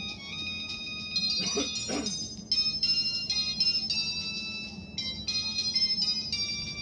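Samsung GT-E1150 mobile phone playing a ringtone melody through its small speaker: a quick run of high, electronic notes. Two short, lower sounds break in at about one and a half and two seconds in.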